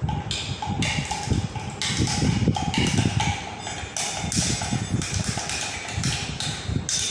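Long metal bar spoon stirring a drink in a tall glass, with quick, irregular clinks and taps of the spoon against the glass.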